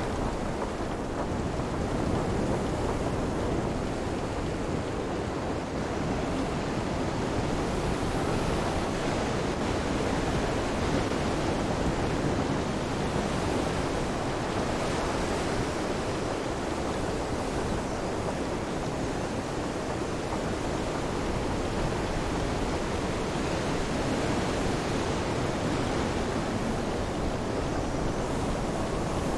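Steady storm ambience: an even, unbroken rush of rain and wind.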